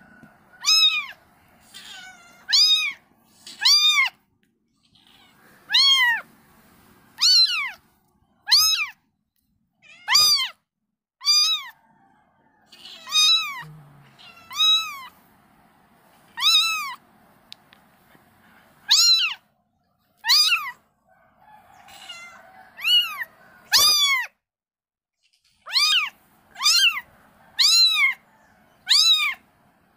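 Kittens mewing over and over: short, high calls that each rise and fall in pitch, about one a second, with a few brief pauses.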